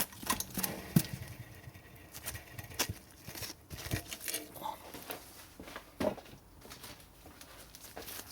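Irregular light knocks, taps and rustles of hands handling parts and gear at a bench grinder while moving to the next polishing mop.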